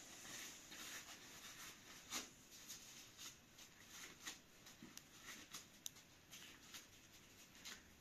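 Faint, irregular rustling and crackling of dry flatbread being torn and broken into pieces by hand.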